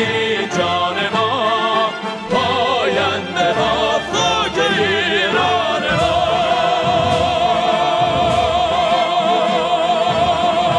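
Male operatic voice singing with orchestra, closing on one long held note with vibrato from about six seconds in.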